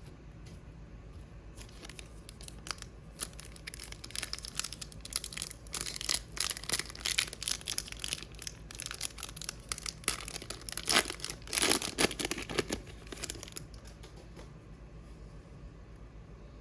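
Hockey card pack wrapper being crinkled and torn open by hand, a run of crackling and ripping sounds that is busiest for several seconds in the middle and dies away near the end.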